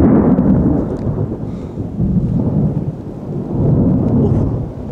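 Thunder rolling in a long, deep rumble that swells three times and eases off near the end, from a lightning strike close overhead.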